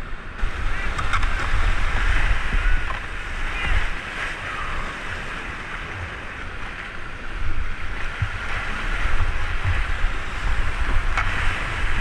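Whitewater rapid rushing and splashing close around a kayak as it paddles down through the drop, with buffeting rumble on the microphone; louder in two stretches, about one to four seconds in and again near the end.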